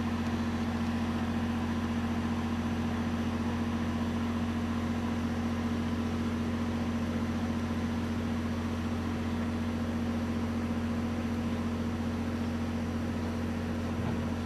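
Steady low mechanical hum, like an engine idling, with a constant tone above it; it holds an even level and does not change.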